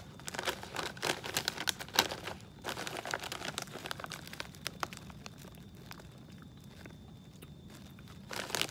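Plastic snack bag of cheese balls crinkling as it is handled and turned, in a quick run of crackles that thins out past the middle and picks up again near the end.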